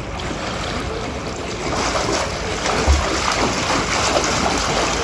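Steady rushing noise of splashing pool water and wind at an outdoor swimming pool in falling snow, growing louder about two seconds in.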